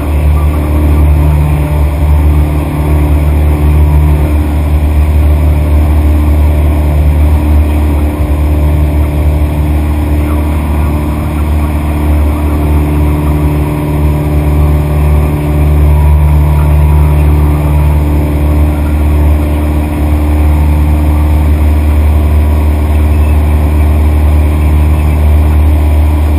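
Light aircraft engine running steadily: a loud, continuous low drone with steady tones above it that hold their pitch.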